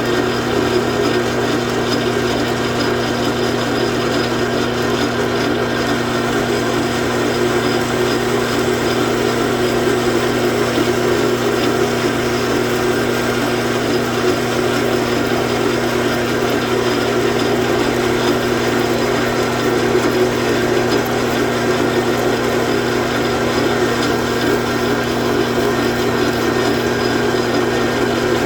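Metal lathe running steadily under power, its motor and gearing giving a constant hum while it takes a cut along a Morse taper.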